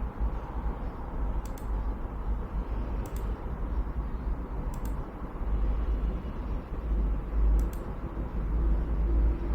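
Desktop PC's cooling fans running steadily while its Xeon E3-1245 v3 is held at full load by an FPU stress test, under a heavy, uneven low rumble. There are a few faint clicks, about one every second and a half.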